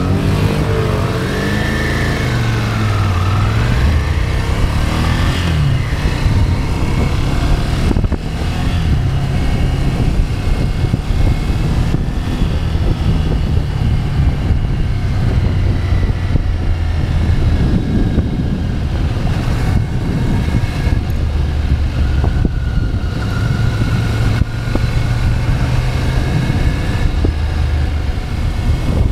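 Ducati Scrambler's L-twin engine running while riding, heard from the rider's own bike along with a rush of wind and road noise. In the first few seconds the engine note rises and falls as the bikes pull away, then it settles into a fairly steady drone.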